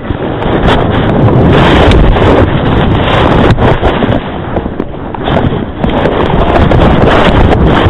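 Loud wind rushing over a helmet-mounted camera's microphone as a skier descends at speed, with rough, uneven hissing and scraping throughout.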